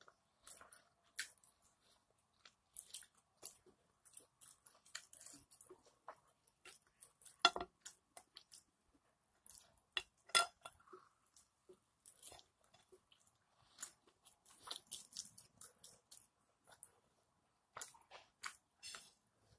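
Close-up mouth sounds of a person chewing and biting bone-in steak eaten by hand: many short, irregular clicks, with two louder ones about 7 and 10 seconds in.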